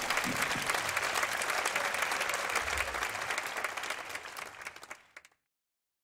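Audience applauding, a dense patter of many hands clapping that fades over the last second or so and cuts off to silence about five seconds in.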